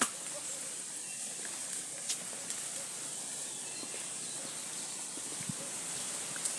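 Steady outdoor hiss with a few isolated sharp clicks or knocks: one at the start, one about two seconds in and one near the end.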